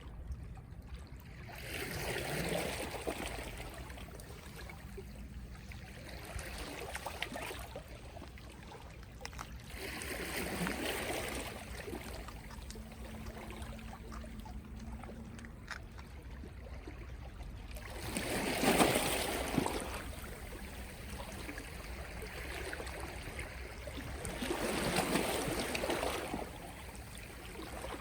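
Small, gentle sea waves washing in on the shore, four of them about seven or eight seconds apart; the third is the loudest.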